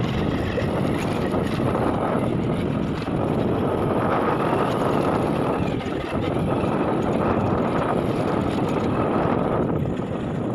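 Steady rush of wind on the microphone over a running vehicle engine, as heard while riding along a rough dirt track.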